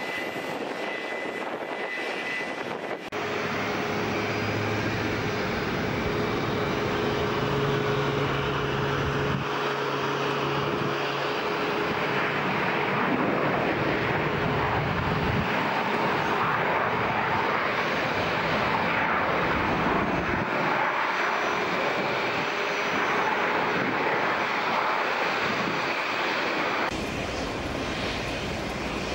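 Boeing 737 MAX's CFM LEAP-1B jet engines: a quieter steady hum while a jet taxis, then, after a sudden change about three seconds in, a louder, steady rush of jet noise as a jet moves along the runway, dropping back to a quieter taxiing hum near the end.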